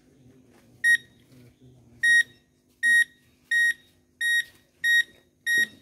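Garrett handheld metal detector beeping as it is passed over an elephant's skin: seven short, high beeps, coming faster after the first two. The detector is signalling metal under the skin, the lodged bullet.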